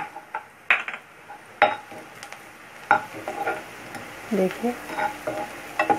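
Metal spatula stirring onions, green chillies and curry leaves frying in oil in a kadhai, with a light sizzle and a few sharp clicks where the spatula knocks against the pan.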